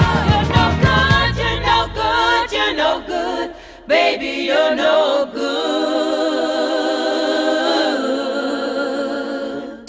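Background music: a song whose bass and beat drop out about a second in, leaving voices singing unaccompanied, which settle into one long held chord that fades near the end.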